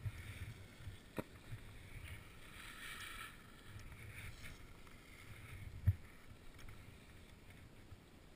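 Skis sliding over groomed snow with a swelling hiss, under a low rumble of wind on the microphone, with two sharp clicks about a second in and near six seconds.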